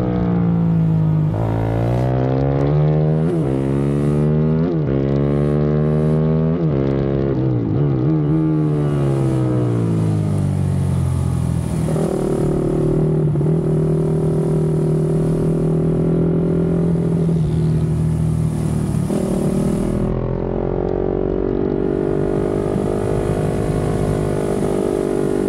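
KTM supermoto's single-cylinder engine being ridden hard: for the first half the pitch climbs and drops sharply again and again as the revs rise and fall, then from about halfway it holds at a steady, nearly constant speed.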